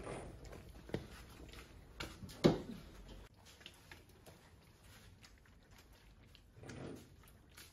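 Hands kneading a large mass of risen, sticky hotteok dough in a plastic basin: soft wet squelching and patting, with one sharp knock about two and a half seconds in.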